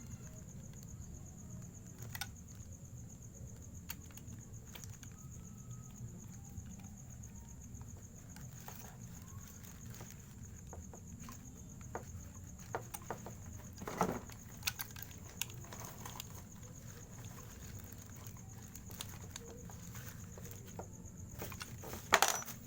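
Crickets trilling steadily over a low hum, with scattered clicks and knocks of a handheld jigsaw being handled, not running. The loudest knocks come in a quick cluster near the end.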